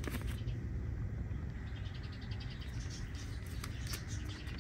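Plastic zipper freezer bag rustling and crinkling faintly as it is handled and opened, over a steady low rumble.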